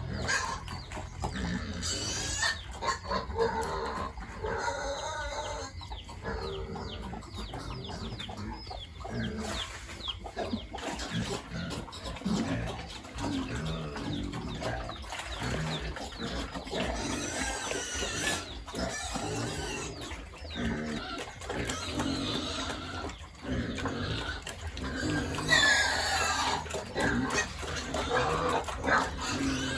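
Farmyard animals calling: pigs and chickens together, a steady jumble of short calls with one louder sweeping call near the end.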